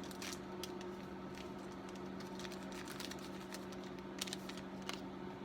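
Scattered light clicks and taps of small tools and parts being handled on a workbench, over a steady electrical hum.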